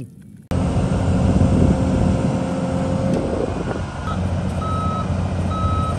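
Large Volvo crawler excavator's diesel engine running steadily. In the second half a back-up alarm beeps a few times, about one beep a second.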